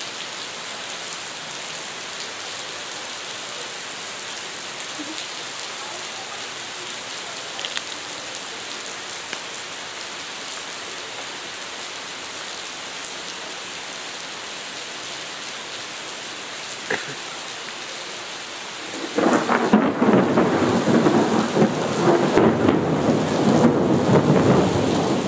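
Heavy rain pouring down, a steady hiss of falling water. About two-thirds of the way through, a much louder, rough, crackling noise takes over and keeps going.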